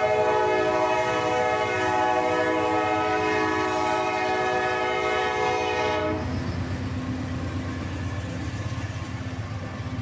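Diesel freight locomotive's air horn sounding one long chord of several notes, cut off suddenly about six seconds in. After it, the low rumble of the locomotives' diesel engines and wheels on the rails as they pass close by.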